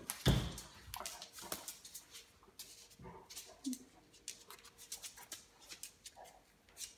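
A Labrador and a Bengal cat play-wrestling on a tile floor: scuffling, with claws clicking and scrabbling on the tiles throughout, a heavy thump just after the start, and a short low grunt about halfway through.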